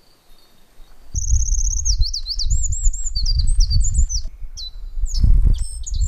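Black-faced bunting singing close by. The song starts about a second in with a quick high trill, runs into a string of varied sweeping whistled notes, and a few more notes come near the end. A loud, uneven low rumble sits under the song.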